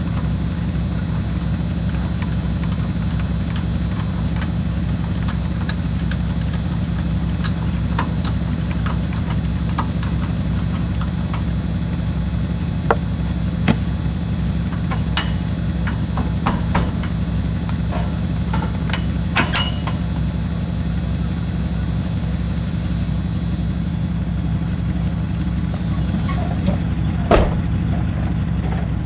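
A vehicle engine running steadily, with a few sharp knocks scattered through; the loudest knock comes near the end.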